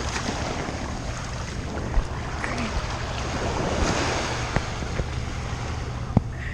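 Ocean surf washing on the shore with wind buffeting the microphone, a steady hiss that swells a little midway. A few sharp knocks cut through it.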